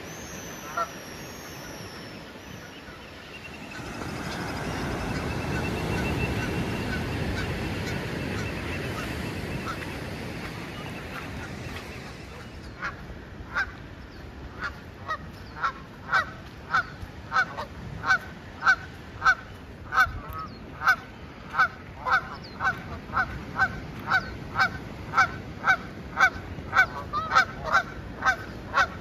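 A rushing swell of noise for several seconds, then a Canada goose honking in a steady, repeated run of short calls, about one and a half a second, that grows louder toward the end.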